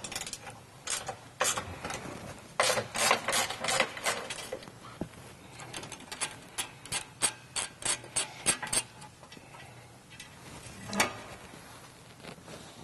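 Hand socket ratchet clicking in quick runs of strokes as the nuts holding the factory crossmember are backed off, with one louder knock near the end.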